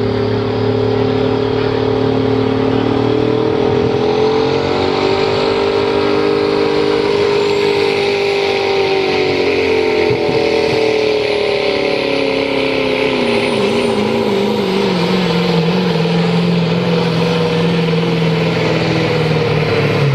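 Ford Super Duty diesel pickup's engine running at high revs on a pulling truck, its pitch rising a little and then dropping lower about two-thirds of the way through and holding as the truck pulls the sled. A thin high whistle rises and fades above the engine midway.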